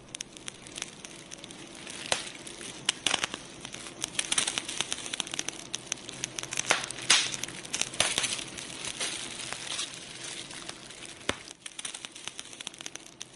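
Fire crackling: a steady hiss with dense, irregular pops and snaps.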